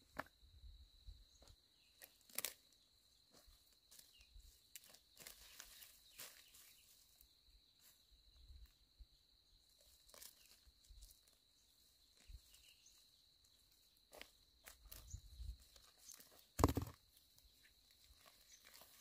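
Faint rustling and crackling of dry leaves, grass and twigs as a person steps and picks things up from dry ground, with one louder snap or crack near the end. A steady high thin tone runs underneath.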